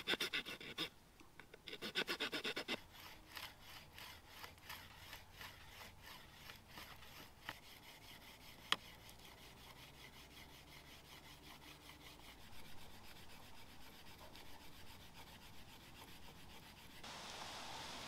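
Wood being sawn or rubbed by hand in back-and-forth strokes: a fast, louder run about two seconds in, then fainter steady strokes at about two or three a second, with one sharp click near the middle.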